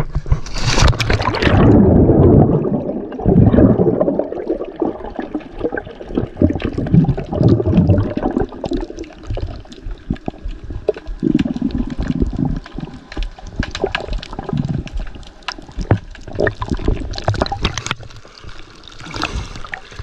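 A splash into the water about a second in, then muffled gurgling and bubbling with scattered clicks, heard with the microphone underwater.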